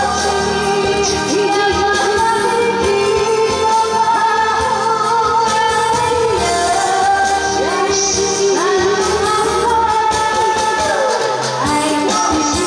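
Women singing a pop song into handheld microphones over loud amplified backing music, through the stage's PA.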